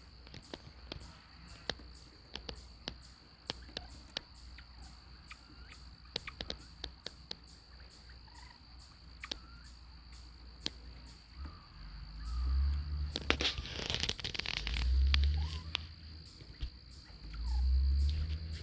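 Snowflake bobwhite quail making soft, short chirping calls, scattered among many light clicks and taps. Low rumbles come in and out over the second half, the loudest just past halfway.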